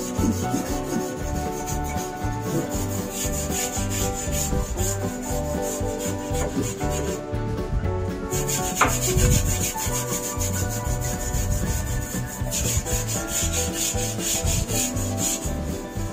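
A stiff bristle brush scrubbing back and forth over the bare, rusty sheet metal of a 1965 Mustang's dash panel, a continuous run of rasping strokes.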